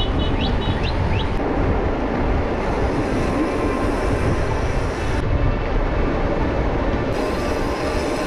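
Steady rushing rumble of wind on an action camera's microphone and mountain bike tyres rolling on a dirt road as the pack of riders moves off from the start, with a few short high beeps in the first second.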